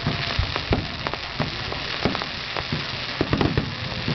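Fireworks display going off: many sharp pops and bangs at an irregular pace, several each second, over a steady rushing noise.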